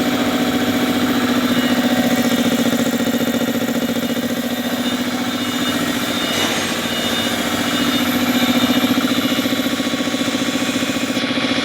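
Swan 1 hp three-phase electric air compressor running steadily, its pump giving a fast, even pulsing hum.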